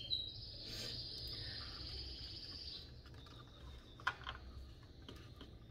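Faint, steady high-pitched insect drone in the background, thinning out about three seconds in, with a couple of soft taps from hands handling an orchid on a wooden log.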